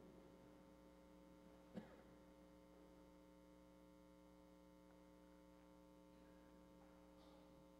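Near silence: room tone with a steady electrical hum. One faint knock comes nearly two seconds in.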